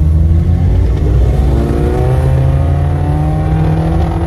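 1994 Toyota Hilux Surf's engine accelerating on the road, heard from inside the cabin. The engine note climbs steadily from about a second in as the revs build.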